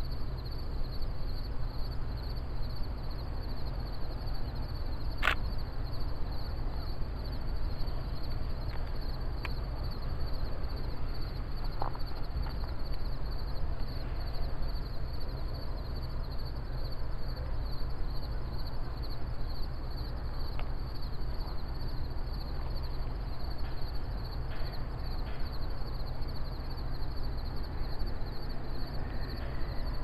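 Rural outdoor ambience at dawn: a steady low rumble under a continuous, high, finely pulsing insect trill, with one sharp click about five seconds in.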